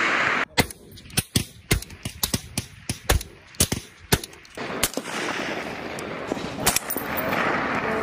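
Suppressed 7.62 mm M110A1 semi-automatic rifles firing on a range: an irregular string of more than a dozen sharp shots over the first five seconds. Then a steady hiss follows, with a few more shots near the end.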